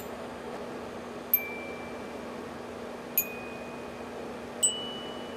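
Notes struck one at a time on a glockenspiel's metal bars: four sharp strikes about a second and a half apart, each ringing on briefly, the last three stepping upward in pitch. The notes are a short learned harmony pattern: a first key, then the first key plus one, then that key plus three.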